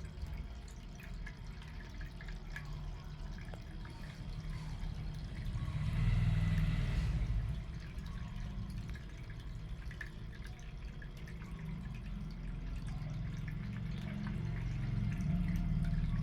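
Small homemade water fountain running, water trickling and dripping, with a louder stretch of flowing water about six seconds in.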